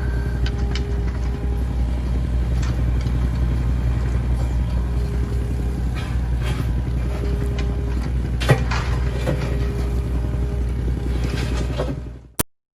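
Hitachi ZX38 mini excavator's diesel engine running steadily under work, with a whine that comes and goes and scattered clanks and knocks from the working attachment, one sharper than the rest. The sound fades out near the end.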